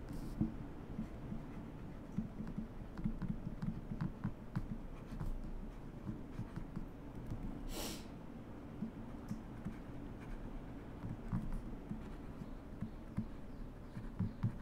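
Stylus writing on a tablet: faint irregular taps and scratches of the pen tip as handwriting is drawn. A short hiss about eight seconds in.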